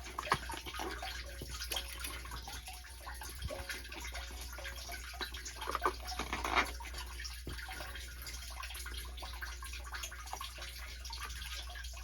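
Water dripping and trickling, with scattered small clicks and knocks from the sump pump's pressure-switch housing being unscrewed and handled. A louder rustle and clatter comes about six to seven seconds in.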